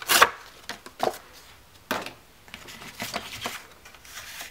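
Sheets of paper being handled and laid down on a glass craft mat: a few short rustles and taps, the loudest right at the start.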